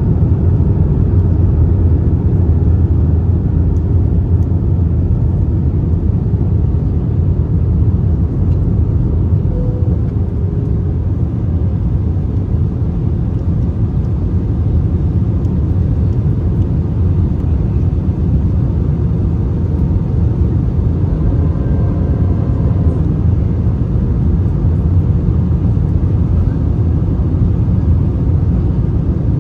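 Steady low rumble inside the cabin of an Airbus A321-231 in flight on approach: its IAE V2500 turbofans and the airflow over the fuselage.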